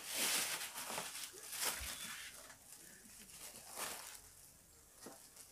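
Plastic wrapping on a box rustling and crinkling as it is handled. The rustles come in several short, faint bouts and mostly die away after about four seconds.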